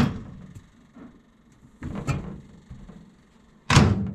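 Microwave oven door pushed shut with a sharp thud near the end, after a couple of quieter knocks and clunks of handling as the bowl goes inside.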